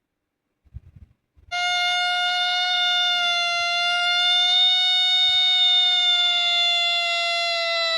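A single loud, high-pitched tone with many overtones starts about a second and a half in and is held at a steady pitch, sliding slightly lower near the end.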